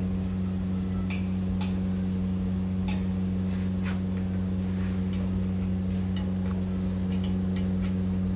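Hammer striking a spanner on the gearbox housing bolts of a Tata 950 truck gearbox, tightening them: four sharp metallic knocks over the first four seconds, then lighter clicks of metal tools being handled. A steady low hum runs underneath.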